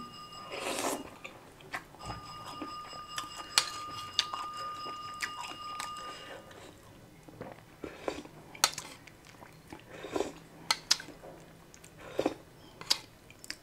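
Eating sounds: a spoon clicking and scraping on a plate, and chewing, heard as scattered sharp clicks. A faint steady high tone sounds from about two seconds in until about six seconds in.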